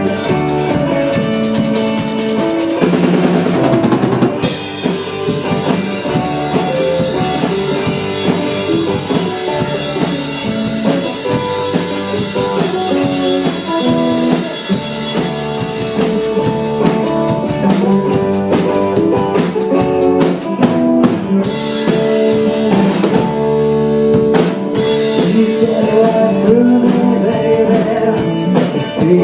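A live band playing an instrumental passage: a drum kit keeping a steady beat under guitar and other pitched instruments, with the drums' high end falling away briefly twice about two-thirds through.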